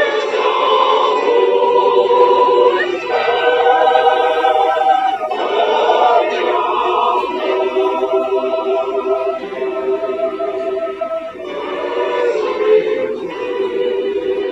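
Choir singing slowly in long held chords, moving to a new chord every two to three seconds.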